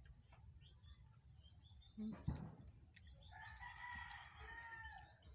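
A rooster crowing once, faint, for nearly two seconds starting about three seconds in. Before it, about two seconds in, comes a single dull thump.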